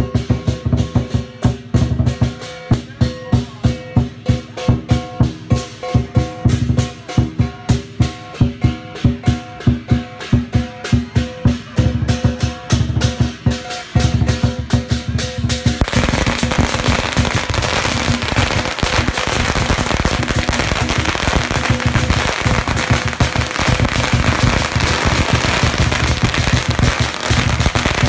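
Lion-dance percussion (drum, cymbals and gong) beating a steady rhythm. About halfway through, a hanging string of firecrackers starts going off in a continuous rapid crackle, with the drumming still going underneath.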